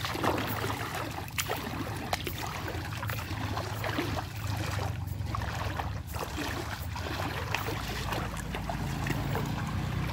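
Bare feet splashing through shallow water in a string of short, irregular splashes, over a steady low background rush.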